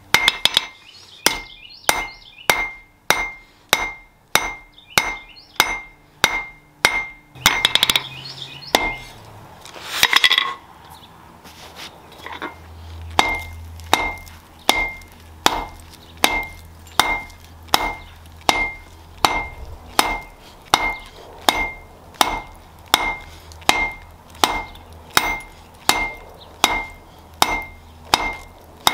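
Hammer blows on steel against an anvil, about two a second, each with a short metallic ring. A quick flurry of blows and a louder ringing strike come about a third of the way in, then a brief pause. A low steady hum runs under the blows from about halfway on.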